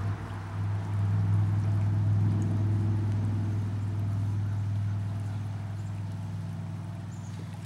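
An engine or motor running steadily with a low, even hum, slowly fading toward the end.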